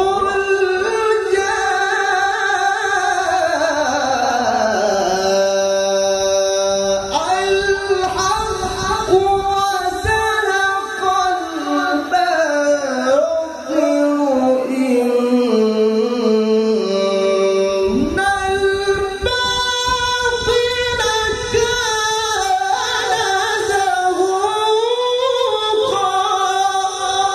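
A male qari's voice reciting the Quran in the ornamented tilawah style into a microphone. A long unbroken phrase slides slowly down in pitch and winds on with trills and turns, then after a short break about two thirds of the way through, a new phrase begins and climbs higher again.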